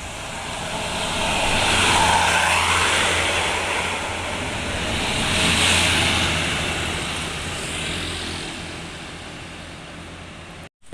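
Two road vehicles passing close by one after the other, each a swell of engine and tyre noise that rises and fades, the first loudest about two seconds in and the second about six seconds in. The sound cuts out abruptly for a moment near the end.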